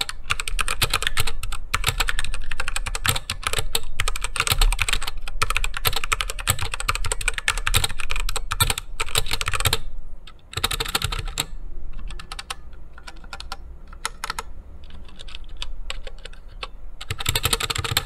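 MageGee MK-Star tenkeyless mechanical keyboard with Jixian Red switches being typed on fast: a dense clatter of keystrokes. About ten seconds in it pauses briefly, then the typing turns lighter and sparser before a fast burst near the end.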